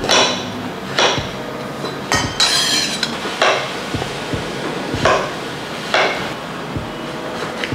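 Chef's knife chopping shiitake mushrooms on an end-grain wooden cutting board: the blade knocks down through the caps onto the board about once a second. There is a short scraping sound a little over two seconds in.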